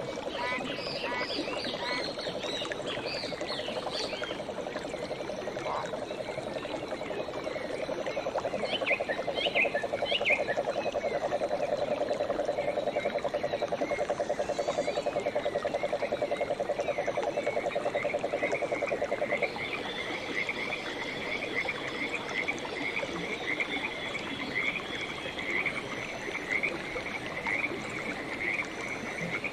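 Frogs calling: a low, fast-pulsing trill that stops about two-thirds of the way through, after which a higher, rapidly repeated chirping call carries on. Scattered high chirps come and go over the first ten seconds.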